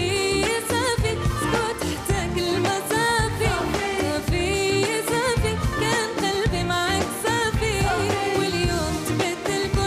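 Arabic pop song: a singer's ornamented, wavering vocal melody over a full band with a steady beat.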